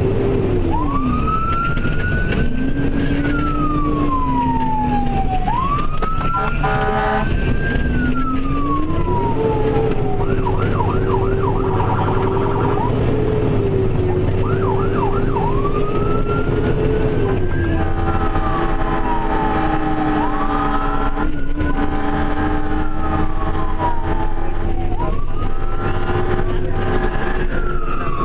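Emergency vehicle siren on a call: a wail sweeping slowly up and down, twice broken by quick yelp sweeps, over a second, lower siren tone that rises and falls more slowly. Blasts of a horn cut in briefly about a quarter of the way in and again for several seconds in the second half, over the low running of the vehicle's engine.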